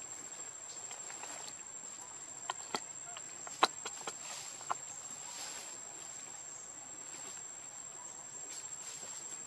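Steady, high-pitched drone of insects calling, with a handful of sharp clicks between about two and a half and five seconds in, the loudest near the middle.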